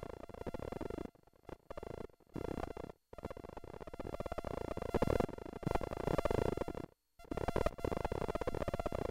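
Glitchy, stuttering electronic sound that cuts in and out abruptly in blocks, with two short dead-silent gaps, about three seconds in and about seven seconds in.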